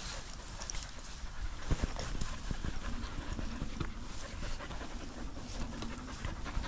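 A dog panting in quick breaths, with one sharp knock about two seconds in.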